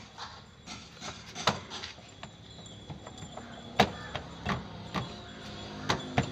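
Workshop clatter: irregular knocks and clicks of hand work on car parts, the sharpest about four seconds in.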